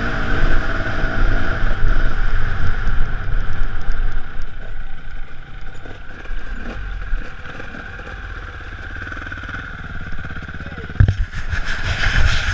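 Enduro motorcycle's engine running on the throttle over rough ground, then easing off to a quieter idle as the bike slows and stops. A sharp knock about eleven seconds in.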